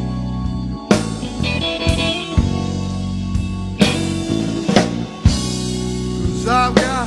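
Blues rock instrumental passage with drum kit, bass and guitar. Drum hits land about once a second, and a few bent guitar notes rise and fall near the end.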